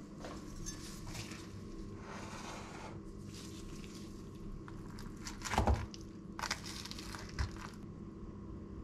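Salad being tossed in a stainless steel bowl with a metal fork and spoon: irregular rustling of dressed lettuce and croutons, with utensils scraping and clinking against the bowl and one louder knock a little past the middle. A steady low hum runs underneath.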